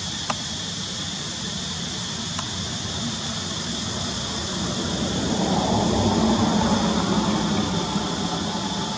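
A steady outdoor drone with a constant high hum, and a low rumble that swells about halfway through and eases off near the end. There is one faint click right at the start.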